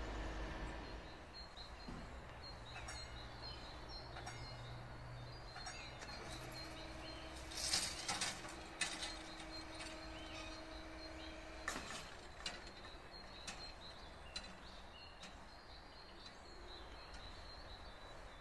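Quiet outdoor ambience with small birds chirping faintly, and a short louder noise about eight seconds in.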